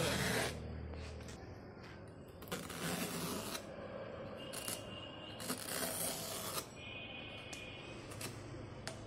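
Hand knife slicing and scraping through the rubber of a large old tyre, in several separate strokes of about half a second to a second, with a few short clicks between them.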